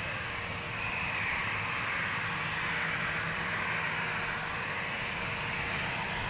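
Boeing 737 jetliner's twin turbofan engines at low taxi thrust as the airliner turns on the runway: a steady jet rush and whine that swells slightly about a second in.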